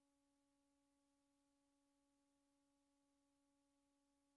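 Near silence, with only a faint steady hum.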